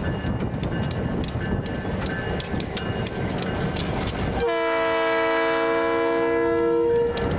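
DMIR SD-9 diesel locomotive passing close by, its engine rumbling and wheels clicking over the rail joints. About four and a half seconds in, its multi-chime horn, which the uploader believes to be a P3, sounds one long steady blast of about two and a half seconds.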